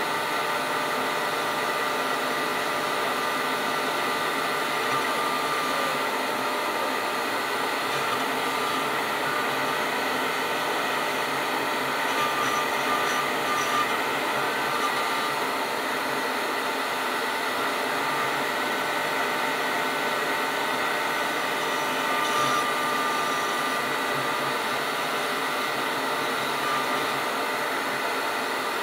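General Gorilla CNC router carving a pattern into a wooden board: the spindle runs with a steady high whine over a continuous rushing noise as the bit cuts.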